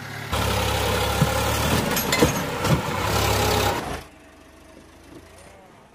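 Diesel farm tractor engine running loud as the tractor climbs out of a flooded paddy field, with a few sharp knocks, then dropping away abruptly to a faint background a little under four seconds in.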